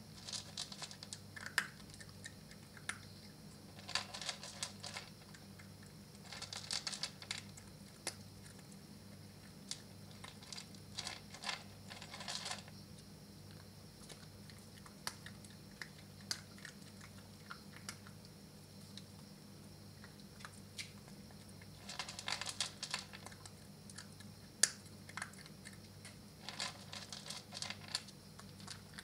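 Maltese puppy crunching dry kibble: several bouts of rapid, crisp clicking chewing, each a second or so long, with single sharp clicks between them. A steady low hum runs underneath.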